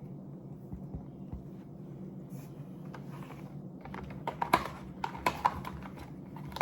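A quick run of light clicks and taps, several a second, starting about two-thirds of the way in, over a low steady hum.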